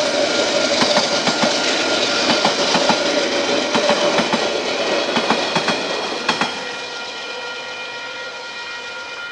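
Passenger train carriages rolling past, their wheels clicking over the rail joints in a clickety-clack rhythm. The clicks stop about six and a half seconds in as the last carriage passes, and the rumble fades away.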